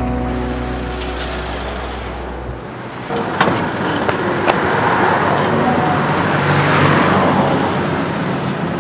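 A road vehicle passing close by: its engine and tyre noise swells to a peak about two-thirds of the way through, then eases off. Before that, a held low music chord dies away in the first few seconds.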